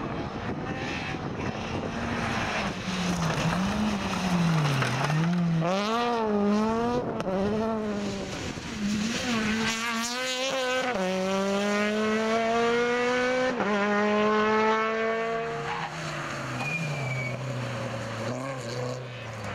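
Small hatchback rally cars driven hard on a special stage: the engine revs rise and fall quickly through the bends, then climb steadily under full throttle, with a quick upshift about two thirds of the way in before the revs climb again and fall away.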